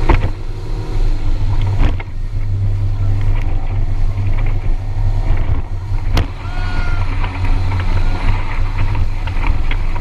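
Motorboat engine running steadily as the boat travels over choppy sea, with water rushing past and a few sharp knocks.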